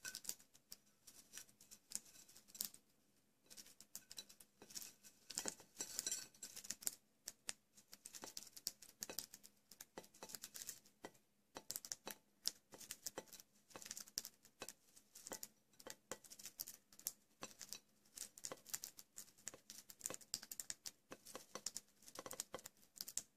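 Budgerigars pecking and husking millet seeds on a ceramic plate: a rapid, irregular run of small, sharp clicks and taps as their beaks crack the seeds and strike the plate.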